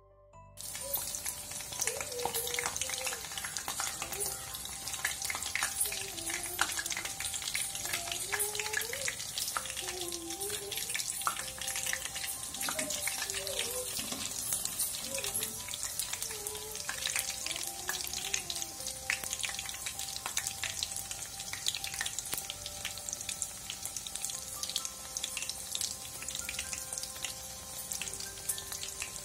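Triangles of rava (semolina) and grated-potato batter shallow-frying in hot oil in a pan: a steady sizzle thick with small pops and crackles. It starts abruptly about half a second in.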